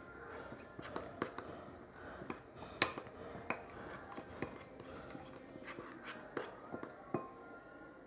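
A metal spoon stirring a thick spice paste in a glass bowl. The spoon knocks against the glass in irregular clinks, one louder than the rest about three seconds in, with soft scraping in between.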